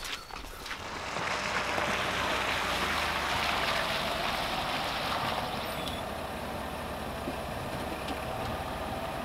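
An SUV driving slowly over a wet dirt and gravel yard, its tyres crunching and splashing under a low engine rumble, then easing to a stop.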